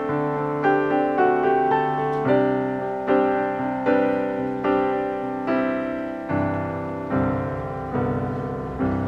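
Background piano music: a gentle melody of single notes and chords, struck about once or twice a second and left to ring.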